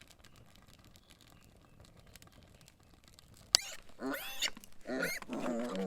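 Faint scattered ticking, then a sharp knock about three and a half seconds in, followed by pigs calling with grunts and squeals that bend up and down in pitch.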